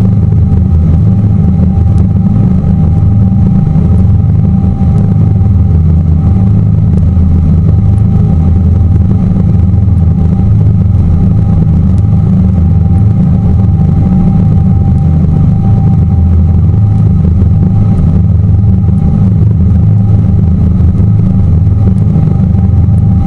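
Tour boat's engine running steadily, a loud constant low drone with a faint steady whine above it.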